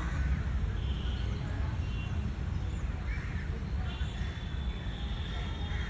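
Songbirds chirping and calling in short, scattered notes over a steady low background rumble.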